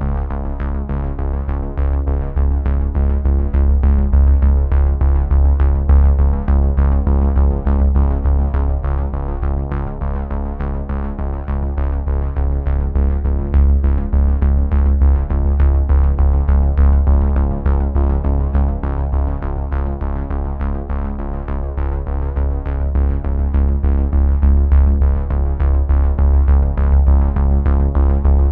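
Background electronic music: synthesizer chords over a steady bass and beat.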